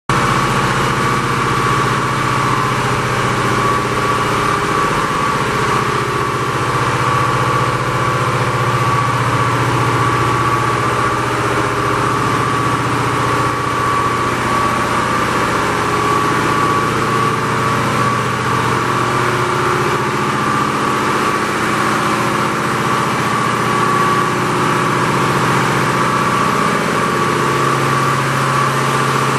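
Steady din of the research vessel Sikuliaq's engine-room machinery running, a low hum under a steady high whine and an even hiss.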